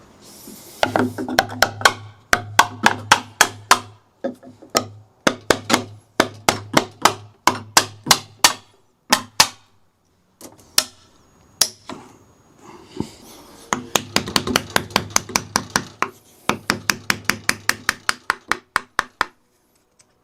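Rapid runs of sharp hammer knocks on wood, about three to five a second, stopping and starting every few seconds.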